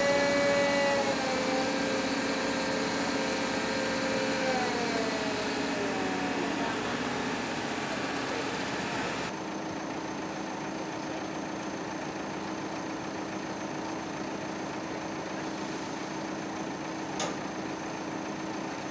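Heavy-equipment engine running steadily, its pitch sagging about five seconds in; after a cut, a quieter, even engine hum with one light click near the end.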